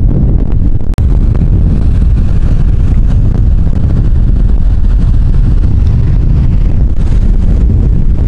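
Wind buffeting the microphone: a loud, steady low rumble, with a brief break about a second in.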